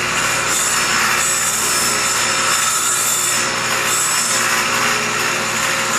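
Table saw running, its blade scraping a shallow cup into the bottom of a wooden segmented bowl blank as the blank is turned by hand over it. A steady motor hum under continuous rasping wood noise.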